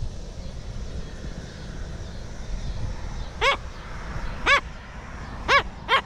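Short, high animal calls, each a brief rise-and-fall, coming about once a second from about halfway through, over a steady low rumble.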